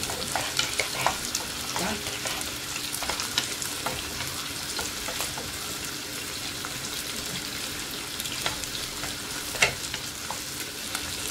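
Onions, green chillies, garlic and mustard seeds sizzling in hot oil in a non-stick pan while a wooden spatula stirs them, with scattered sharp clicks and a louder knock near the end.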